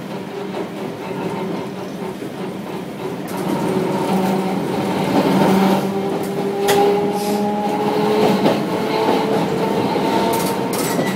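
Tosa Electric Railway 700-series streetcar's nose-suspended traction motors running. Their whine grows louder about three and a half seconds in and climbs slowly in pitch as the tram gathers speed, with a few clicks of wheels over the rails.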